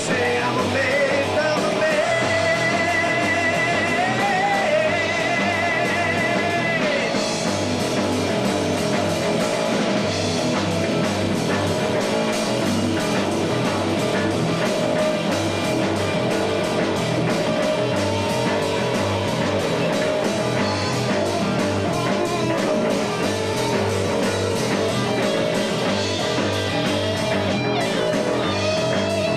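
A rock trio playing live on electric guitar, electric bass and a drum kit, with a steady beat.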